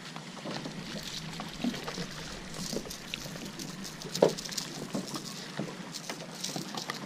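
Water lapping and slapping against the hull of a small fishing boat, with scattered light knocks and one louder knock about four seconds in.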